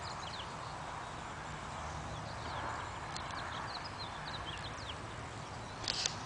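Small birds chirping over a steady outdoor hiss, with a short rustle near the end.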